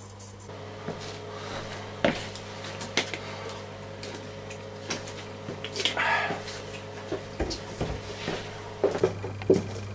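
Scattered light clicks and knocks over a steady low hum, with a brief rustling hiss about six seconds in.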